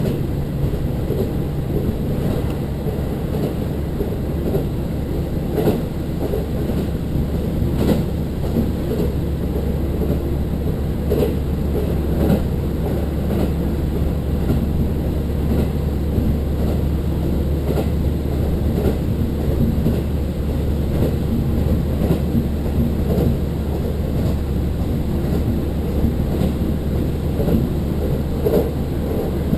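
The running noise of a diesel railcar heard from inside the car: a steady low drone of engine and wheels, with irregular clicks and knocks from the wheels on the rails.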